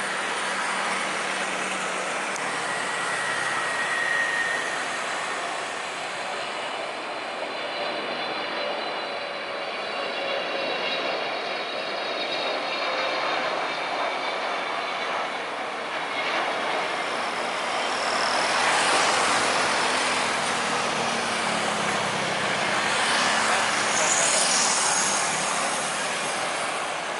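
Singapore Airlines Boeing 777-300 jet engines on landing: a steady turbofan noise with a high fan whine through the first half. The sound grows louder through the second half as the airliner touches down and rolls out.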